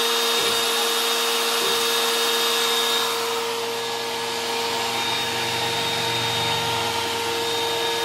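Router motor on an Oliver 1013 CNC machine running at speed, a steady whine with a hiss, softening a little after about three seconds; a low hum rises under it for a couple of seconds near the end.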